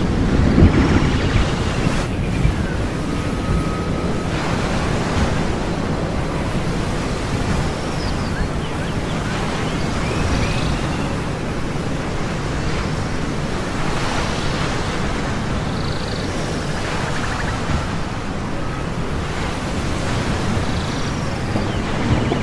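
Ocean surf washing steadily, a continuous rushing noise, with a few faint high chirps now and then.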